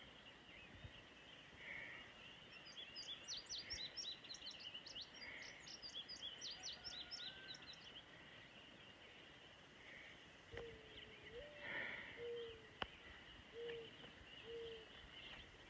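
Faint dawn birdsong: a bird sings a rapid run of high, falling notes for several seconds, and later a short series of low notes sounds, over a faint steady hiss.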